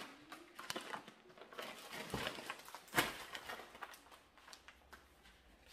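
Plastic grocery packets rustling and crinkling as they are handled, with irregular knocks and clicks. The loudest knock comes about three seconds in.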